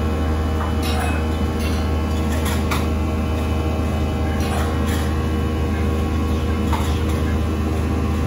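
Steady low hum of running kitchen equipment, with a few light clinks and knocks of utensils and dishes being handled.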